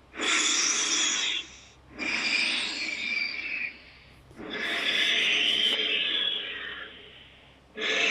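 Custom monster roar sound effects for a polar-bear kaiju: three hoarse, noisy roars, the first two short and the third longer, tailing off near the end.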